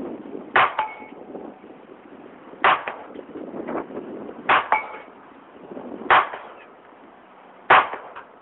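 GSG 1911 .22 LR pistol fired five times in slow succession, about one shot every one and a half to two seconds. After the first and third shots a short, faint metallic ring follows a fraction of a second later: the 6-inch steel plate at 150 feet being hit.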